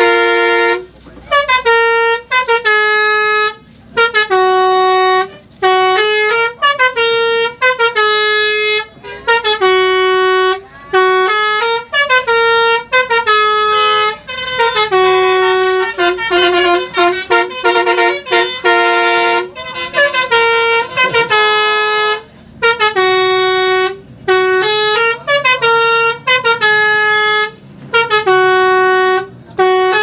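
Indonesian 'telolet' bus horn, a multi-tone horn, playing stepped little melodies over and over. It comes in loud bursts of a second or two, separated by short gaps.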